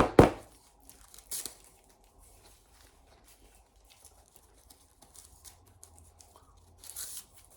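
Handling noises: two sharp cracks with a crinkle of plastic at the start and a smaller crack a second later. Then faint small taps, and a short rustle near the end.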